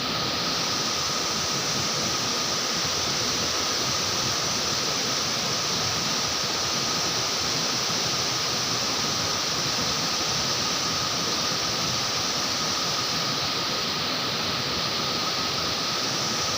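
Steady rush of river water, an even hiss that does not change, with a thin steady high tone running through it.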